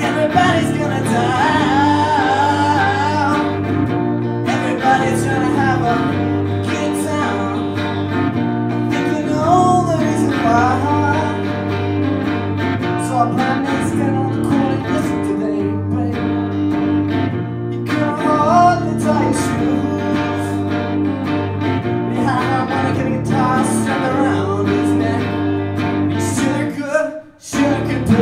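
A man sings a song into a microphone while playing chords on an amplified electric guitar. The music breaks off for a moment near the end, then carries on.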